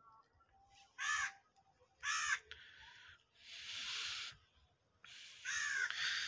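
Crows cawing: two calls a second apart, then another near the end, with a stretch of rustling papaya leaves in between.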